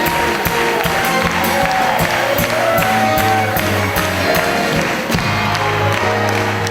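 Music with a steady beat of sharp strikes, about three a second, under held and sliding melodic notes.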